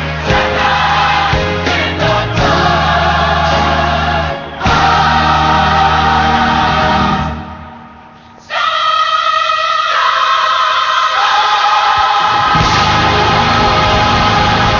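Gospel choir singing with instrumental backing. Past the middle it fades away for about a second, then comes back with long held chords.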